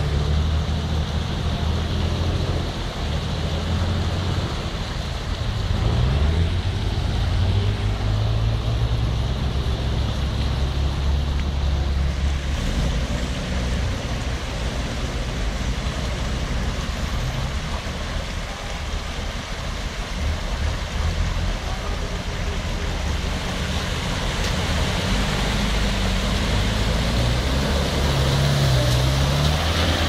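Four-wheel-drive SUV's engine pulling through a flooded stream ford, its pitch rising and falling a few times as the driver works the throttle, over the steady rush and splash of the water.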